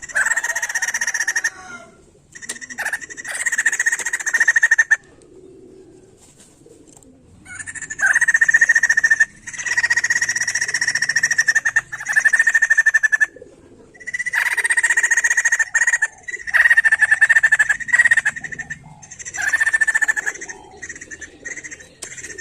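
White-crested laughingthrush (Poksay Jambul) calling in loud phrases of fast, rattling notes, each phrase lasting one to two seconds with short pauses between.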